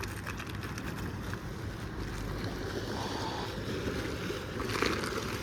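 Steady wind noise on the microphone: a low rumble with a hiss, and a few faint clicks.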